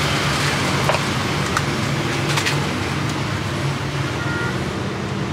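Steady roadside traffic noise with a low engine hum, and a few light clicks about one to two and a half seconds in.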